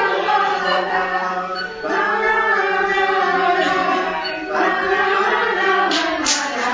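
Group of young children singing a song together in chorus.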